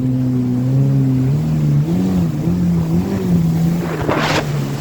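Jet ski engine running under way, its pitch stepping up about a second in and then wavering as the throttle changes, over the rush of water and wind. A short rush of noise comes near the end.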